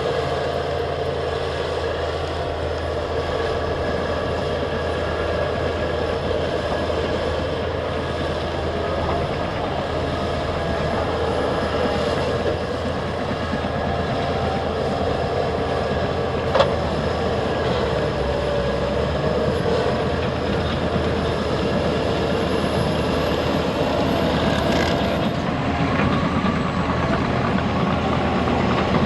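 Liebherr PR 756 and PR 736 crawler bulldozers working: diesel engines running under load with steady whining tones over a low drone and the clatter of steel tracks, with a single sharp clank about halfway through.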